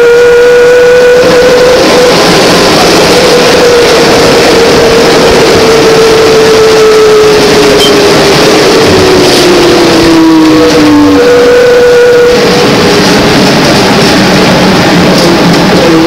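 GM New Look trolleybus with Brown Boveri electric propulsion under way, heard from inside: a steady electric traction motor whine over dense road and cabin noise. The whine drops in pitch from about seven to eleven seconds in. A few sharp clicks are mixed in.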